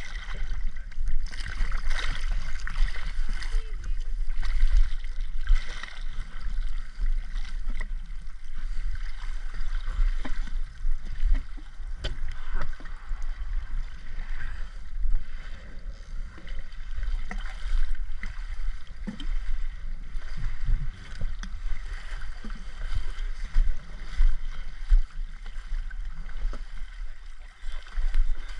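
Rushing, bubbling water noise over a steady low rumble, surging irregularly.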